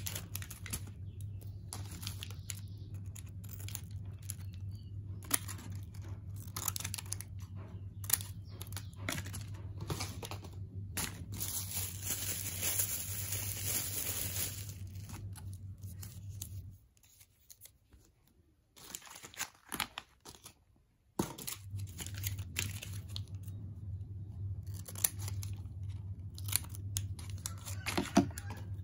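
Plastic medicine sachets and foil blister packs handled and sorted, crinkling and rustling in many short crackles, with a longer tearing rustle around the twelve-second mark. A low steady hum runs underneath and drops out with everything else for a few seconds past the middle.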